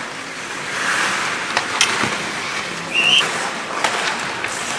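Live ice hockey play heard from the arena: steady crowd and rink noise with a few sharp clacks of sticks and puck. A short high-pitched tone sounds about three seconds in.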